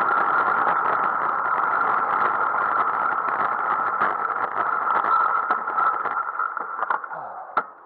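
Wind and road rush on a bicycle-mounted camera while riding, fading away about six seconds in as the bike slows to a stop. A few sharp clicks follow near the end.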